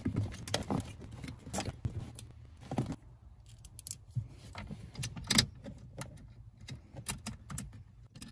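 Hands handling a thin wire and plastic dashboard trim: irregular clicks, taps and small rattles as the wire is pushed in and tucked behind the panel, with the sharpest click about five seconds in.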